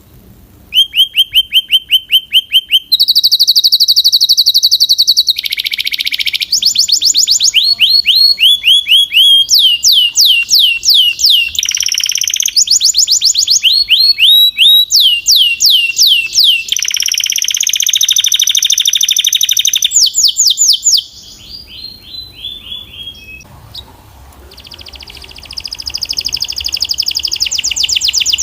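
Belgian canary singing a loud song of rapid trills, starting about a second in. Each phrase is a quick run of repeated notes, and pitch and speed change every second or two. Near the end the song drops away briefly, then a new trill starts.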